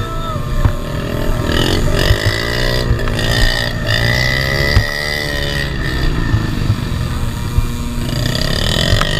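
Dirt bike engine being ridden hard, its note climbing and dropping several times as the throttle opens and closes, with one longer pull in the middle. A steady high whine runs alongside.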